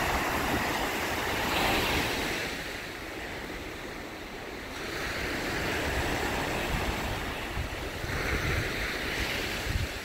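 Surf breaking and washing up a sandy beach, the wash swelling and easing every few seconds. Wind rumbles on the microphone underneath.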